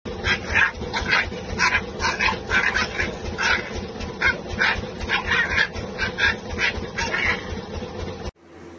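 Puppies play-fighting, giving short, high yips and whines about twice a second. The cries stop abruptly near the end.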